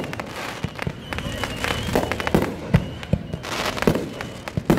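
Fireworks display: aerial shells bursting in a string of booms, about one or two a second, with crackling between them.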